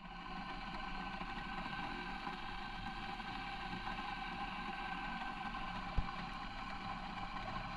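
Electric toothbrush running steadily while teeth are brushed, a constant motor buzz. A single short click about six seconds in.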